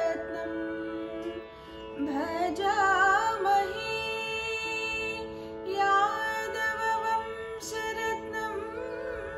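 Female voice singing a Carnatic melody in raga Sindhu Bhairavi, held notes bent with wavering ornaments, over a steady drone. The voice drops out briefly about a second and a half in, then returns in phrases.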